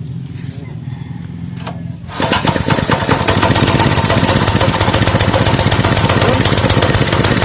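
Fujihama 7 HP petrol water-pump engine catching about two seconds in and then running loud and steady, a rapid even pulse: the won't-start fault is cured after the carburettor cleaning and spark repair. A low hum comes before it starts.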